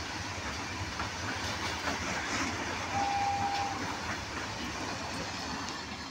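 Open-top freight wagons of a long goods train rolling past on the rails: a steady rumble and wheel noise, with a brief high steady tone about three seconds in. The sound begins to fade near the end as the tail of the train passes.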